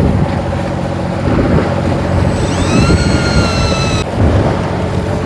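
A fishing boat's engine running steadily, with wind and water noise. About two and a half seconds in, a high whine rises quickly, holds for about a second and a half and cuts off.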